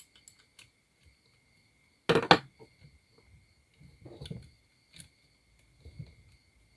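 Metal clicks and clatter from a chainsaw bar and chain being shifted by hand on an angle-grinder chainsaw adapter, loosened so the bar can slide for chain tensioning. A short, louder clatter comes about two seconds in, with lighter clinks after it.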